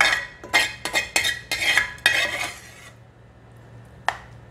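Metal spoon scraping cooked ground beef out of a frying pan in a run of quick strokes, then one sharp tap about four seconds in.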